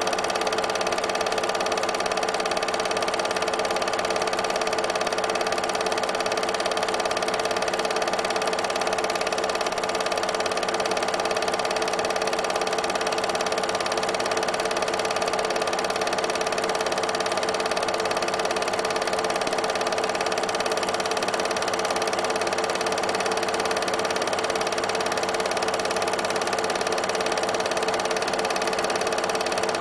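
8mm film projector running: a steady mechanical whir that does not change.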